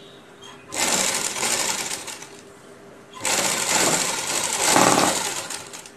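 Sewing machine stitching a seam in two runs of about a second and a half and two and a half seconds, with a short pause between them.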